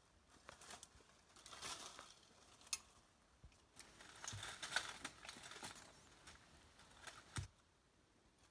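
Dry leaf litter rustling and crackling as it is pushed aside by hand among small stones, in two bouts. A few sharp clicks and taps from stones or a blade come through it, the loudest about seven and a half seconds in.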